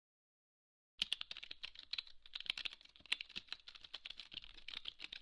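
Computer keyboard typing sound effect: a quick, uneven run of key clicks that starts about a second in.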